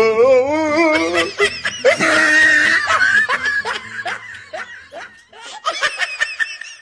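Laughter, a warbling ha-ha-ha at first, then thinner giggles that get quieter toward the end.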